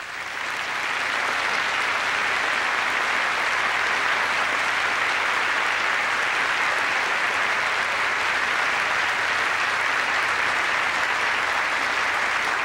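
A large audience applauding steadily, many hands clapping at once and holding an even level throughout.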